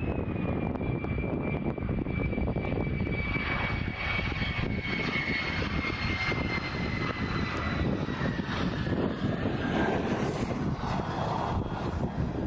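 F-16 Fighting Falcon's single jet engine rolling down the runway past the listener. A high turbine whine slides slowly down in pitch as the jet goes by, over a steady loud rush of engine noise.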